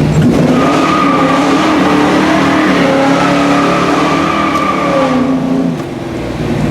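AMC Javelin doing a burnout with the line lock holding the front brakes: the engine is held at high, fairly steady revs while the rear tires spin and squeal. The revs drop off about six seconds in.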